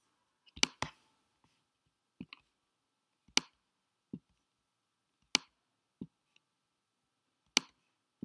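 About eight sharp clicks, some in pairs, the loudest coming roughly every two seconds, with quiet between them: a computer mouse being clicked close to the microphone.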